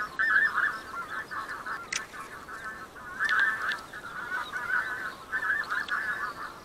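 A flock of wild geese calling in flight overhead: many short, overlapping honks that go on without a break, with a single sharp click about two seconds in.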